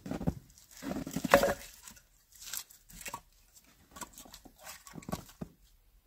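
Split firewood logs knocking and clattering against each other as they are set down in a pile, with irregular knocks and rustling, loudest about a second in.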